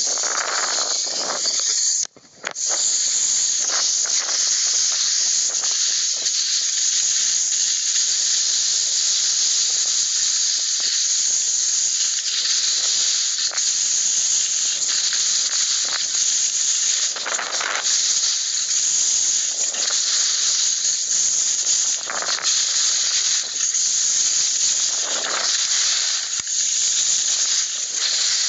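Steady high-pitched hiss with a brief dropout about two seconds in and a few short swells in the middle of the sound.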